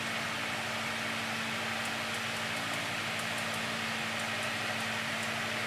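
Steady low electrical hum with even hiss, with a few faint light ticks midway; the sewing machine is not stitching.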